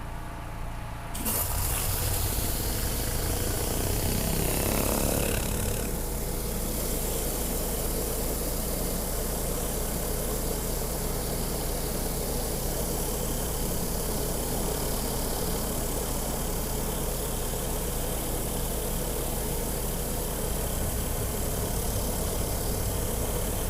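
Pressure washer running, its engine humming steadily, with the high-pressure water spray hissing on suddenly about a second in and holding steady.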